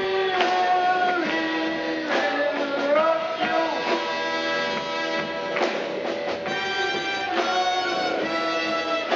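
Live circus orchestra music, with sustained melodic notes and some sliding pitches.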